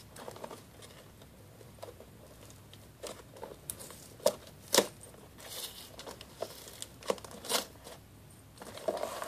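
Packaging being opened by hand: paper crinkling and tearing as a mailed gift box is unpacked. Quiet for the first few seconds, then scattered crackles, a few sharp snaps and a short burst of rustling.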